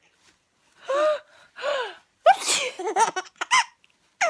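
A woman sneezing: two drawn-out "ah… ah…" wind-up sounds, then a sharp "choo" burst a little under two seconds in. A few short high-pitched vocal sounds follow.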